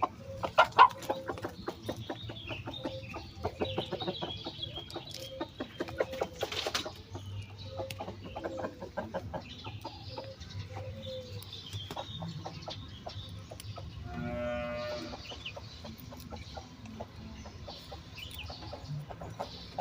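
Chickens clucking, with one longer call about two-thirds of the way through, over many short clicks and knocks.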